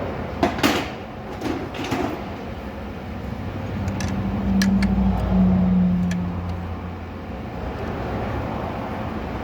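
Hand tools clanking and clicking as a stuck socket is worked loose from a ratchet or breaker bar, with several sharp metal knocks in the first two seconds. In the middle, a low steady hum swells up and fades away under a few lighter clicks.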